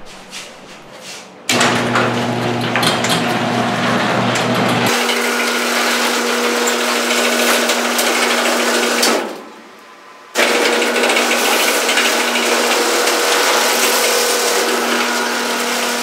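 Genie H4000A half-horsepower screw-drive garage door opener running a test cycle on its newly replaced carriage: the motor starts about a second and a half in and runs steadily with a hum and rattle for about eight seconds as the door goes up, stops for about a second, then runs again as the door comes back down. It runs through each stroke without stopping partway, the new carriage's threads gripping the drive screw.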